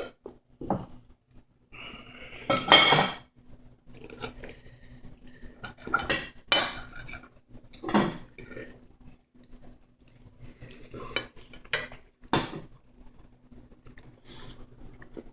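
Cutlery clinking and scraping on plates, with a few sharper clatters scattered through.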